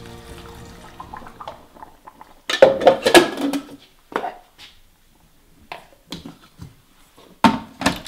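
Soft music fading out, then kitchen clatter as a glass blender jar is handled: loud knocks and clinks about two and a half seconds in, scattered smaller knocks, and another clatter near the end as the lid goes on.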